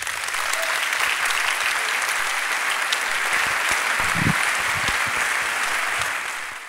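A large seated audience applauding steadily at the end of a talk, the clapping dying away near the end.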